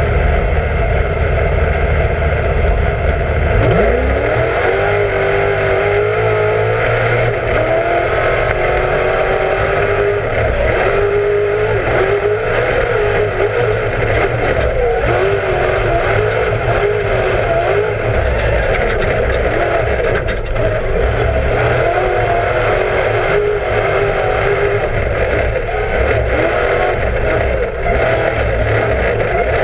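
Class 1 off-road race car's engine running hard: a low rumble at first, then revs sweeping up about four seconds in and staying high, the pitch rising and falling as the car is driven at speed.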